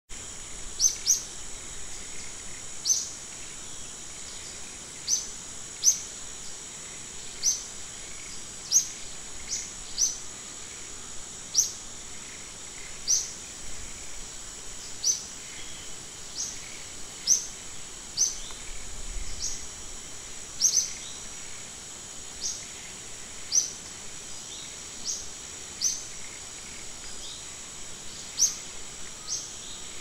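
Forest ambience: a steady high-pitched insect drone, with a bird repeating short, sharp rising chirps about every second or two.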